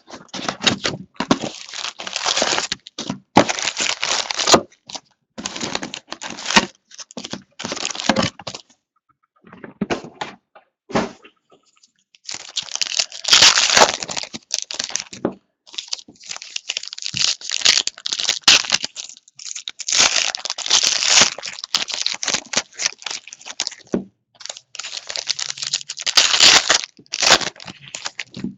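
Plastic wrapping on a box of Hoops basketball trading cards and its packs being torn open and crinkled by hand, in irregular crackling bursts with short pauses between.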